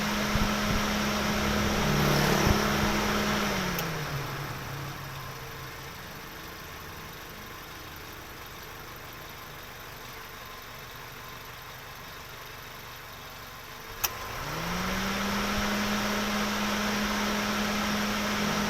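Car engine running at a steady pitch, which winds down and falls quiet about four seconds in. After a sharp click about fourteen seconds in, it spins back up smoothly to the same steady pitch.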